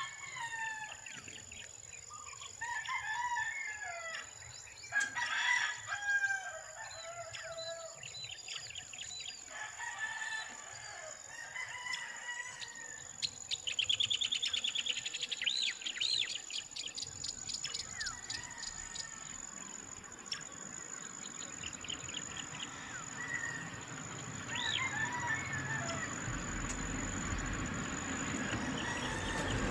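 Roosters crowing and chickens clucking while small birds chirp, with a fast bird trill about halfway through. A steady high thin whine runs underneath, and a low rushing noise builds over the last few seconds.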